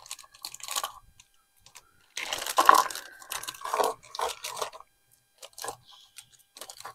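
Plastic hardware pack crinkling and crackling as it is opened and screws are taken out. It comes in three bursts, the longest and loudest in the middle.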